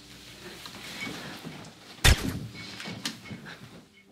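A single gunshot about two seconds in: one sharp crack that tails off quickly.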